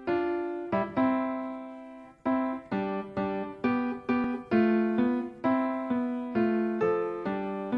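Background music: a piano playing a simple melody one note at a time, each note struck and left to fade. A few long notes come first, then quicker notes from about two seconds in.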